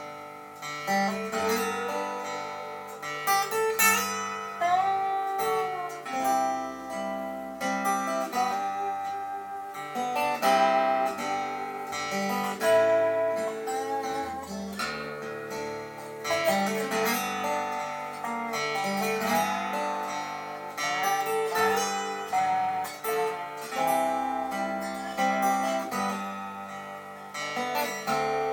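Slow waltz played on dobro and acoustic guitar, the dobro's slide gliding between notes, with no singing yet. It is heard as a recording played back through hi-fi loudspeakers in a room.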